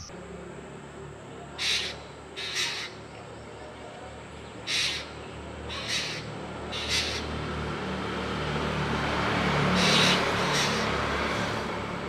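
Indian grey hornbill giving short, harsh calls, about seven of them at uneven intervals, over a steady low rumble.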